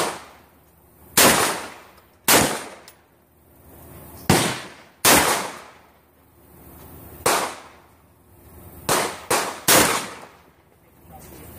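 Saiga-12 semi-automatic shotgun firing 1 oz slugs: about nine loud shots at irregular spacing, with a quick string of three near the end, each with a brief echo.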